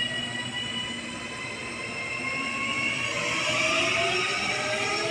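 Auckland Transport AM class electric multiple unit pulling away: its drive whine rising steadily in pitch as the train accelerates, with wheel and rail noise growing from about three seconds in.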